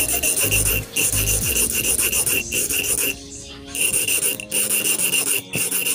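Hand filing with a flat steel file: quick repeated rasping strokes as the hook points of a homemade squid jig are sharpened by hand. The strokes stop for under a second about three seconds in, then start again.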